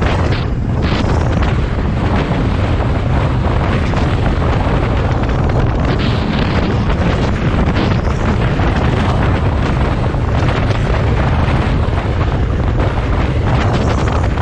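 Heavy wind noise on the microphone: a loud, steady rumble with no break.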